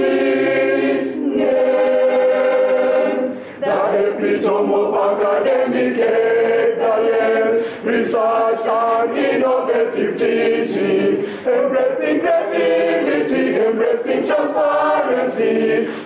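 Choir singing unaccompanied, in held chords with brief pauses between phrases: the university's anthem.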